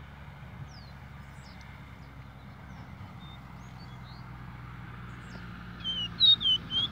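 Caboclinho, a small Sporophila seedeater, giving a short song phrase of several quick whistled notes near the end, with a few faint chirps before it. Wind and a low steady hum run underneath.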